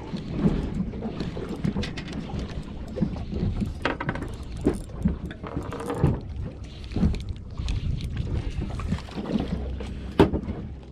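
Handling knocks and bumps aboard a small fishing boat over a steady low rumble, with one sharp knock near the end the loudest.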